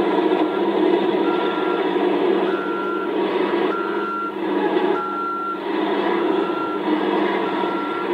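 Backup alarm beeping at one steady pitch, about one beep a second, over the steady running of heavy diesel earthmoving machinery.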